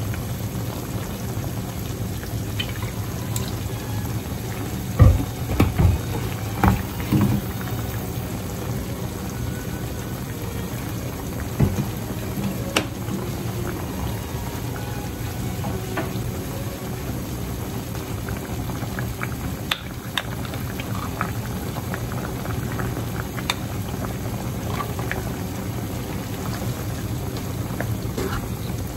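Chicken and vegetables in a soy-based sauce simmering and bubbling in a frying pan, with a few knocks about five to seven seconds in.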